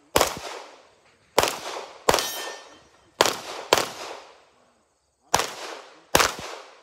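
Seven shots from an Alien Retro open-class competition pistol, fired as one single shot followed by three pairs under a second apart, each shot trailing off in echo.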